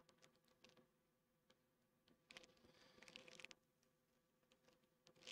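Near silence with a few faint small clicks and a patch of light scraping about two seconds in: a through-hole resistor with a bent lead being worked into its holes on the circuit board.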